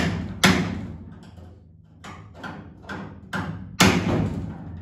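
Hand sledge striking a steel punch held against a VW Beetle's A-pillar hinge mount, sharp metallic blows with a ringing tail. Two hard blows come at the start, then a run of lighter taps and another hard blow near the end, nudging the metal a few thousandths of an inch to correct the door gap.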